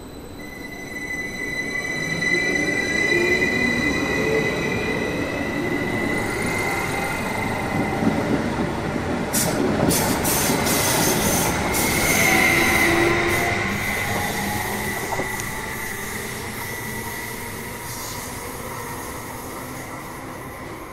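A train passing, its wheels squealing on the rails in a high, steady tone over the running rumble. Sharp clicks come in a cluster about nine to twelve seconds in. The sound builds over the first couple of seconds and fades slowly after about thirteen seconds.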